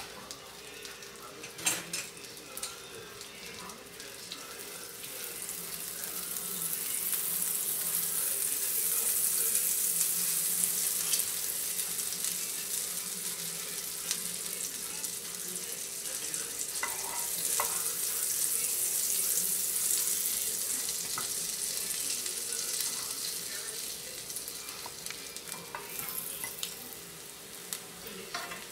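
Butter sizzling as it melts and foams in a nonstick frying pan, a steady hiss that swells a few seconds in and eases off near the end, with a few light clicks.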